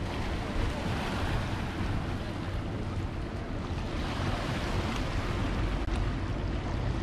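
Steady rushing noise of sea waves washing, with wind rumbling on the microphone.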